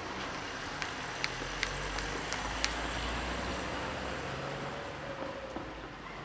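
A car passing on the street, its low rumble swelling for a few seconds and then fading. A run of sharp clicks sounds over the first half.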